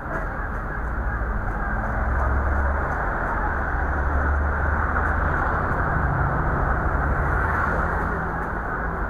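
City street traffic: vehicle engines running and passing with a low rumble that grows louder about two seconds in and eases off near the end, over a general street din.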